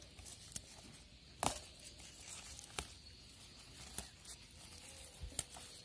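Sweet potato leaves being picked by hand: about five short, sharp snaps of stems breaking, spread through a quiet background, with light rustling of the vines.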